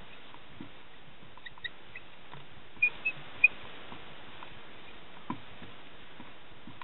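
Dry-erase marker writing on a whiteboard: faint scratching strokes and a few short, high squeaks, the loudest about three seconds in, over a steady hiss.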